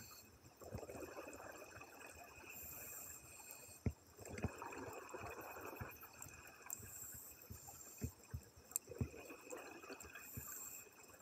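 Scuba divers breathing through regulators underwater, the audio sped up to double speed: short high hisses alternate with longer bubbling rushes, about three breath cycles, with scattered sharp clicks.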